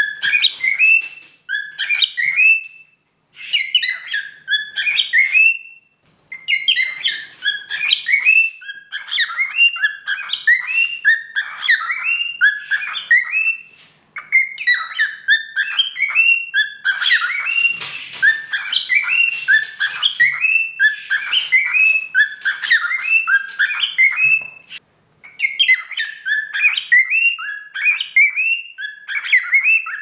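Cockatiel whistling and chirping its song: quick runs of rising and falling whistled notes in bouts of a few seconds, with short pauses between bouts.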